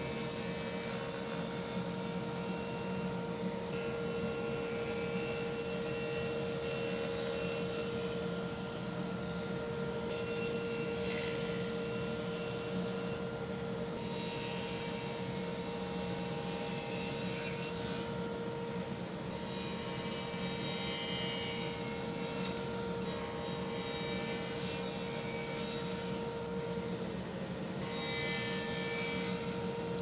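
Table saw running with a steady motor hum while its blade cuts a walnut slab in a series of passes, each a few seconds long, the blade spinning freely in the short gaps between cuts.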